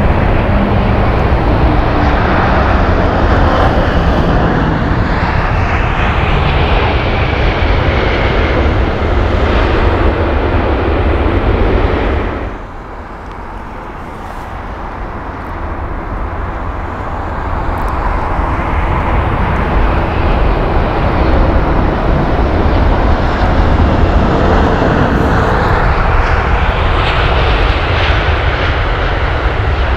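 Jet airliner engines roaring as the aircraft passes low on landing approach, with a whine that falls in pitch as it goes by. About twelve seconds in the roar drops suddenly, then builds up again as another airliner comes in.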